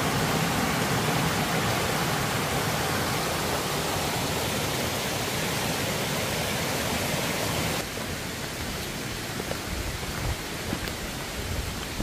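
Mountain stream rushing over rocks: a steady wash of water noise that drops suddenly to a quieter level about eight seconds in.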